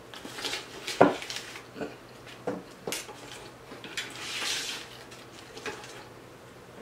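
A fork clinking and scraping in an aluminium foil pan of spaghetti, with scattered sharp clicks, the loudest about a second in, and a rustling stretch in the middle as pieces of crispy fried fish are handled.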